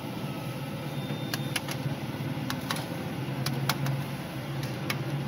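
A perforated steel skimmer clinks and taps against an iron kadai as fried medu vadas are lifted from the oil, about ten sharp clicks, several in quick pairs. Under them runs a steady low hum.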